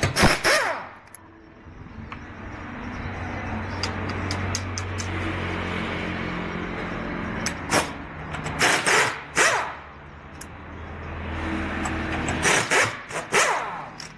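Honda Civic on the move with steady road and engine noise, broken by several bursts of sharp knocking and clattering from the chassis: the kind of chassis noise put down to worn rear trailing-arm bushings.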